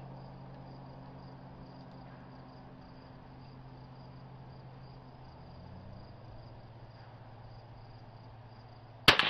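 Crickets chirping steadily, with a low hum underneath that fades out partway through. Near the end, a single sharp rifle shot from the bench.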